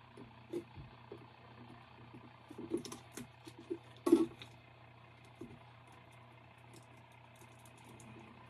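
Small clicks and taps of hands working craft vinyl on a wooden tabletop: a weeding pick and vinyl sheets being handled, with a cluster of taps near the middle and one louder knock about four seconds in.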